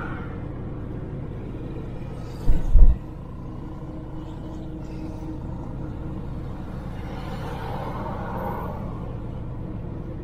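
Steady low rumble of a Suzuki Jimny driving on a town street, engine and road noise heard from on board. About two and a half seconds in come two heavy low thumps close together.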